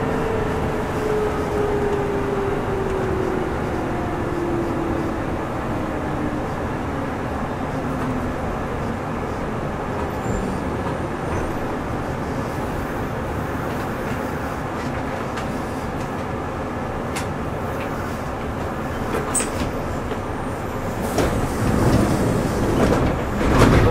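Running sound of a Kintetsu 2410-series electric train from motor car Mo 2430. The traction motor whine falls steadily in pitch over the first several seconds as the train loses speed, over steady rolling noise. Wheel clicks over rail joints follow, and the noise grows louder near the end.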